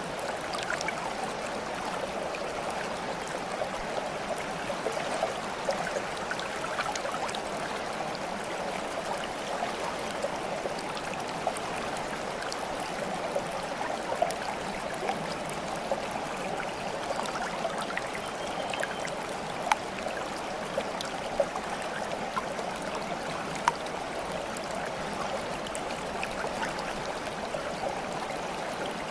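Water flowing and trickling steadily, like a small stream, with a few sharp little clicks scattered through it.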